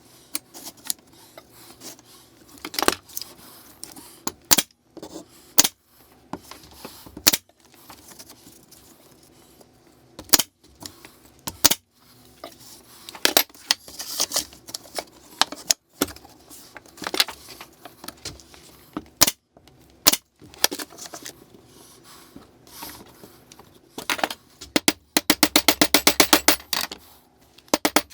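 Workshop knocks and taps from nailing birch-ply parts together and hammering steel split pins, irregular at first. Near the end comes a fast, even run of hammer strikes.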